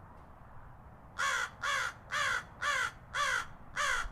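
Crow cawing: a rapid series of six harsh caws, about two a second, beginning about a second in.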